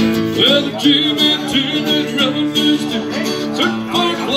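Live country song: an acoustic-electric guitar strummed in a steady rhythm, with a voice singing loosely over it in a break between sung verses.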